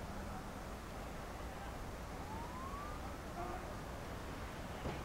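Steady hiss and faint outdoor field ambience on an old camcorder recording. About two seconds in, one faint tone rises in pitch for under a second, and a faint click comes near the end.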